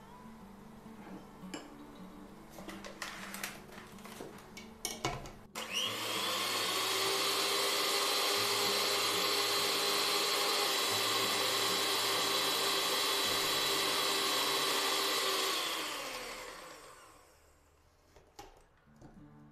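A spoon clinks and scrapes in a plastic jug for the first few seconds. Then an electric hand mixer switches on with a rising whine, runs steadily for about ten seconds whipping grape molasses in the jug, and winds down.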